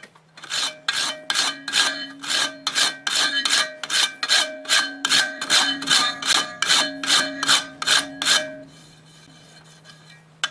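Rhythmic hand strokes of an abrasive tool against a steel cleaver blade, about three a second, each a rasping scrape with a metallic ringing tone. The strokes stop a little after eight seconds, and one more comes at the very end.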